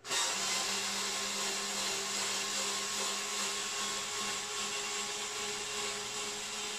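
Small one-handed cordless screwdriver running with a hex bit, backing out a hex socket screw from a subwoofer's protective grille. Its motor and gearbox start suddenly and run at a steady pitch.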